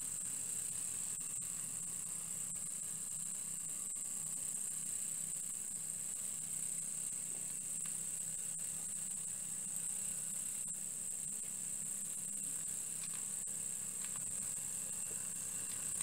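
Several small homemade vertical copper-boiler steam engines running together: a steady high-pitched hiss of steam with faint light ticking.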